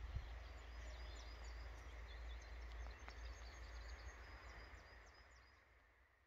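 Quiet outdoor ambience: many short, thin chirps from distant small birds over a low wind rumble on the microphone, fading out near the end.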